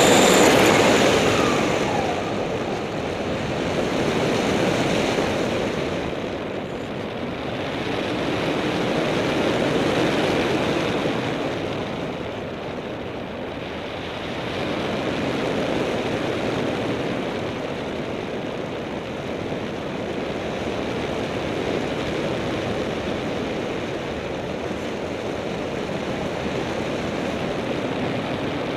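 Airflow rushing over an externally mounted camera on a small propeller aircraft in flight, with the engine and propeller droning under it. The rush swells and eases slowly every several seconds during the first half, then holds steady.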